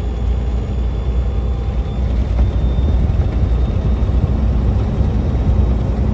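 Steady low rumble of a semi-truck's engine and tyres on the highway, heard from inside the cab.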